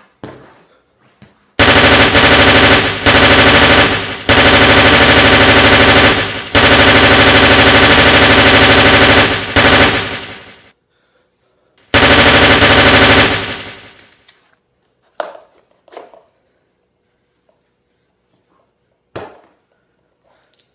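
Machine-gun sound effect dubbed onto a prop gun: long bursts of rapid automatic fire broken by three brief pauses, then a shorter burst a little over a second later, followed by a few isolated sharp clicks.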